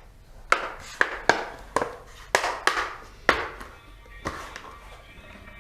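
Sharp plastic clicks and snaps, about eight at irregular intervals, as the laptop's plastic base cover is pried off and its retaining clips pop loose.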